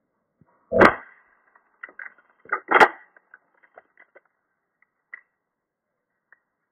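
Bug-A-Salt Shred-ER salt gun firing a reloaded cartridge: two sharp reports about two seconds apart, the first about a second in, with lighter ticks and clicks around them.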